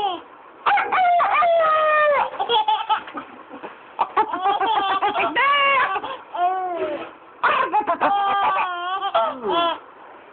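Chicken clucking and crowing sounds in repeated bouts, with a baby laughing in response.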